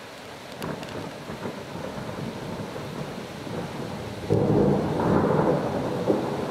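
Rolling thunder: a low rumble that builds and swells into a louder peal about four seconds in.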